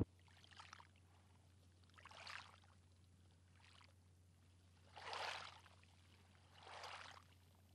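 Faint swishes of moving water, five in all, about one every one and a half seconds, over a low steady hum.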